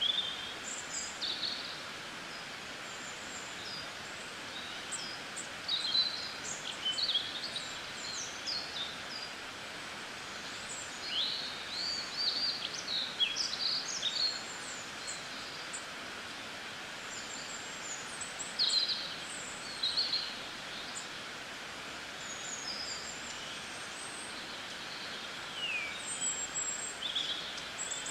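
Small birds chirping in many short, high calls scattered throughout, over a steady background hiss.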